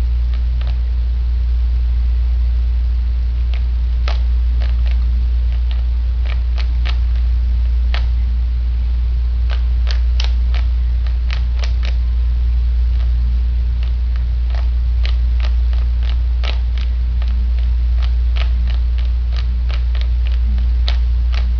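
Rubik's Cube layers being turned by hand, giving irregular sharp clicks. A loud steady low hum runs under them throughout.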